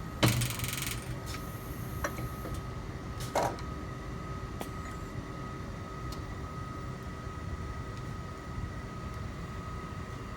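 Automatic gaging machinery running with a steady hum and a steady whine. A sharp clunk comes just after the start, followed by a short hiss, and two lighter knocks come about two and three and a half seconds in.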